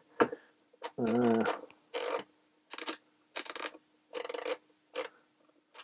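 Torque wrenches being handled and slid about on a workbench: a series of about eight short scraping rubs. A brief voiced sound comes about a second in.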